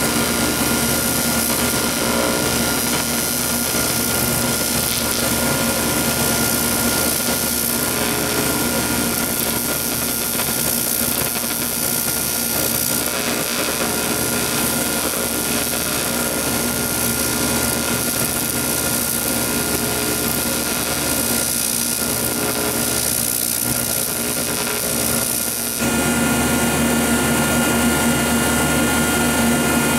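AC TIG welder on aluminum: a steady electrical buzz and hum, from the arc at first and from the welding machine running on after the arc is stopped. The hum steps up slightly near the end.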